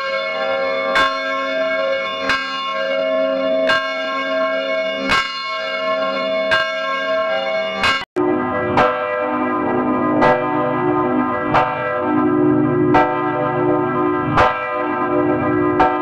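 A swinging church bell tolling, one strike about every second and a half, each strike ringing on into the next. About halfway through the sound cuts off abruptly, and the tolling resumes lower in pitch.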